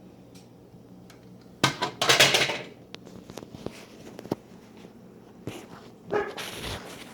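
A cooking pot and plastic filter jug being handled: scattered knocks and clinks, with two louder noisy bursts about two and six seconds in.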